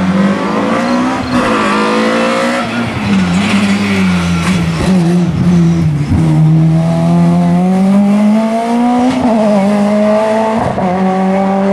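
BMW saloon race car's engine at full race revs on a hill climb. The revs climb and drop again and again through gear changes and braking for a hairpin, then there is a long rising pull through a gear in the second half.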